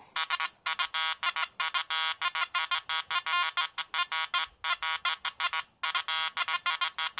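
Makro Multi Kruzer metal detector giving a fast, choppy run of electronic tone beeps in groups with short gaps, as its coil is swept over a nail board: iron nails laid around an eagle button, a mid-conductor.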